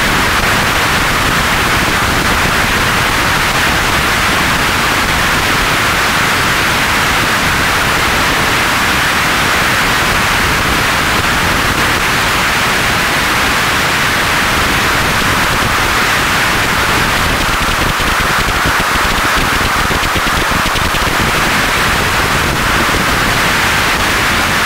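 Steady, even hiss of air flowing from a pressure suit's air supply hose, keeping the suit pressurised.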